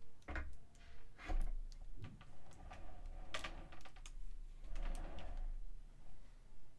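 Irregular light clicks, taps and rustles of a resin statue and its packaging being handled, with soft low bumps as pieces are moved.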